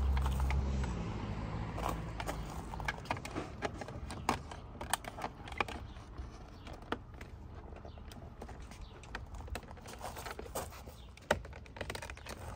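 Carbon-fibre mirror cover being worked onto a Ford Mustang's side mirror housing by hand: scattered light clicks, taps and scrapes of the hard shell against the mirror, at uneven intervals. A low rumble fades out in the first second or so.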